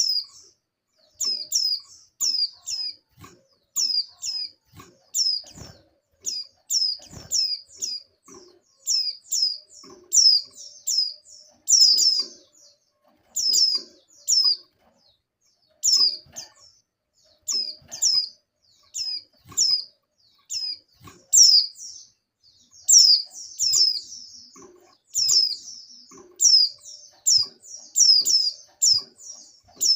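Female white-eye (pleci) calling: short, high chirps that slide downward, given in quick clusters of two to four and repeated over and over. It is the call of a female in breeding condition, used to excite males into singing.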